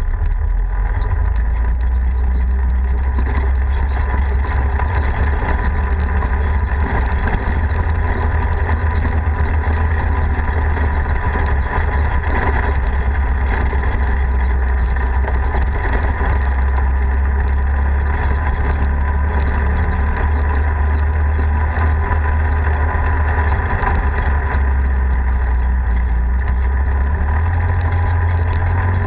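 A Polaris RZR side-by-side's engine running steadily under way on a dirt trail, heard from on board as a continuous drone with a heavy deep rumble. Near the end the rumble shifts slightly up in pitch.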